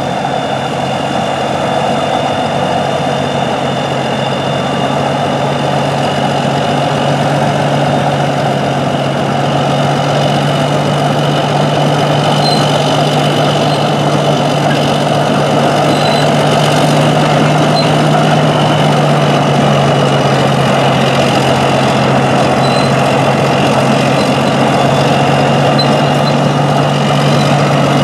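Caterpillar D9 crawler bulldozer's diesel engine running steadily as the dozer drives along, growing louder about a third of the way through as it draws nearer.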